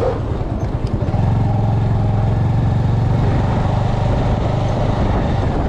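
Bajaj Avenger 220's single-cylinder engine running as the motorcycle is ridden, a steady hum that grows stronger about a second in, with wind noise over the microphone.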